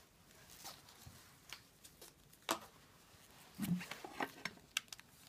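Scattered light clicks and knocks of art tools being put down and picked up on a wooden worktable. A duller, low knock about three and a half seconds in is the loudest.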